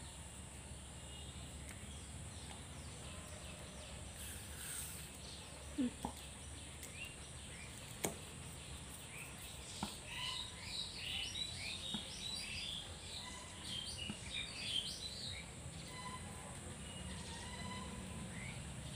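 Birds chirping in a busy run of short, high chirps through the middle and later part, over a faint steady background. A few sharp taps come before the chirping: two close together about six seconds in and one about eight seconds in.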